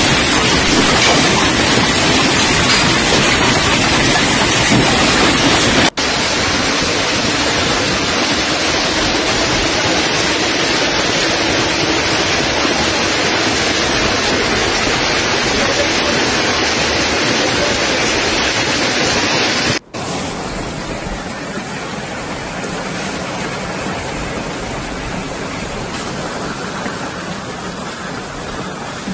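A heavy hailstorm: hailstones and rain falling hard, a dense steady hiss. Three recordings are cut together, changing abruptly about 6 s and 20 s in; the last one is quieter.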